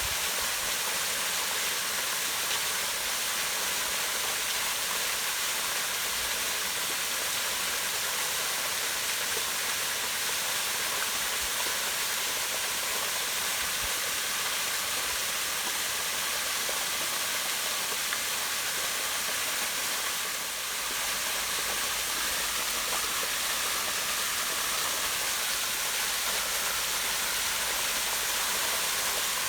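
Small waterfall pouring down a rock face into a pond, a steady rushing of falling water.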